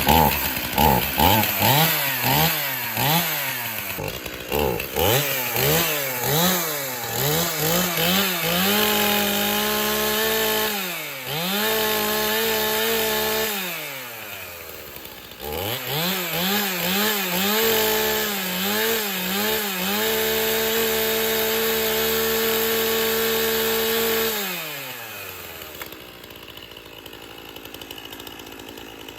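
Two-stroke chainsaw engine running, revved in quick blips of the throttle, then held at high revs several times with drops back down in between. Near the end it winds down and stops.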